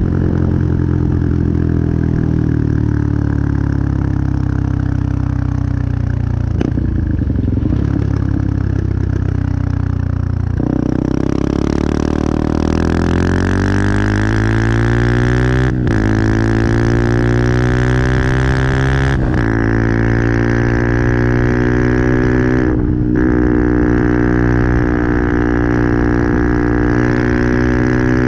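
Benelli TNT 125 single-cylinder four-stroke engine. Its revs sink slowly for about ten seconds, then climb sharply and hold high, with three brief dips where the revs drop and pick up again.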